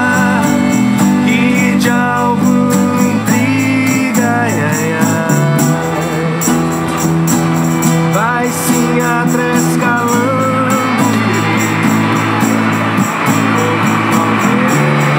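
Live acoustic band music: a steel-string acoustic guitar strummed over a steady shaken-percussion beat like a tambourine, with a melody line that slides and bends in pitch.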